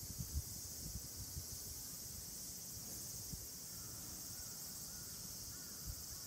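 Steady high-pitched chorus of summer insects, with irregular low rumbles underneath.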